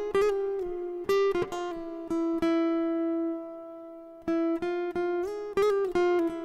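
Film score: a solo guitar plucks a slow melody, sliding up and down between notes. About a third of the way in, one note is held and rings out for a couple of seconds, and then the plucking picks up again.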